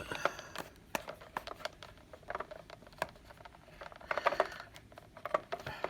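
Light, irregular clicks and taps of a toy belt's plastic strap being handled and wrapped, with brief soft rustling.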